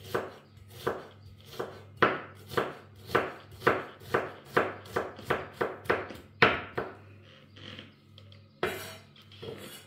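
Chef's knife chopping onion on a wooden cutting board: steady knocks of the blade on the board, about two or three a second, stopping about seven seconds in, with one more knock near the end.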